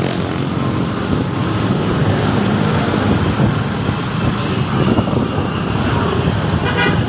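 Motorcycle engine running steadily with road and traffic noise, heard from on the bike while riding through slow city traffic.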